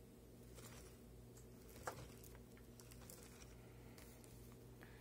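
Near silence: a steady low hum, with a few faint light clicks from the wooden model kit being handled and one sharper click about two seconds in.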